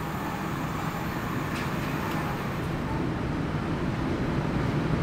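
Steady low rumble of an indoor shooting range's overhead ventilation, growing slightly louder, with two faint ticks about one and a half and two seconds in.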